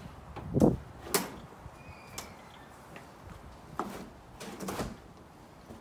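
Knocks and clicks of an Atrium aluminum sliding glass door panel being handled in its frame: a clunk about half a second in, a sharp click just after a second, and a few softer knocks around four to five seconds in.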